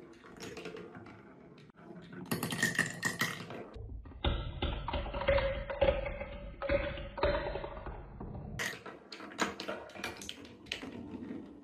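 A marble rolls and clicks along the wooden rails of a Quadrilla marble run. About four seconds in, it spins down a clear plastic spiral tube for about five seconds with a continuous whirring and a ringing tone. It then clacks back onto the wooden track and over a switch.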